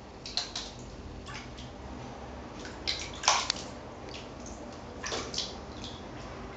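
Water sloshing and splashing in a plastic basin as a sphynx cat paws and wades through it: a handful of short, irregular splashes, the loudest a little past the middle.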